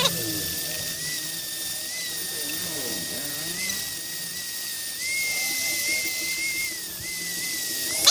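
Small high-speed rotary grinder with an abrasive head, running with a steady high whine as it polishes the drill's metal housing; its pitch wavers slightly a few times.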